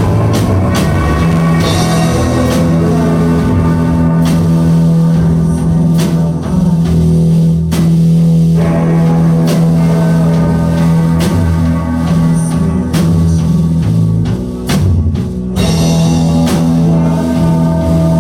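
Rock band playing live and loud: drum kit hits driving over a held low bass drone and layered guitars, in a repetitive psychedelic groove.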